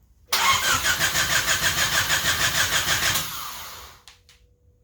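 Starter motor cranking the freshly rebuilt Honda D16Z6 SOHC four-cylinder for about three seconds, pulsing about five times a second, then winding down without the engine catching on this first start attempt.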